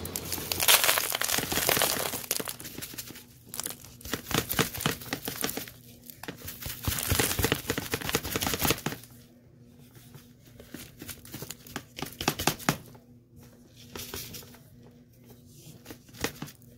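Dry dirt and small debris rustling and crackling, dense for the first nine seconds, then thinning to scattered ticks.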